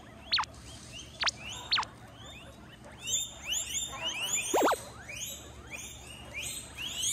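A group of guinea pigs wheeking: a few sharp whistles falling in pitch in the first two seconds, then from about three seconds a rapid chorus of short rising squeaks, several a second.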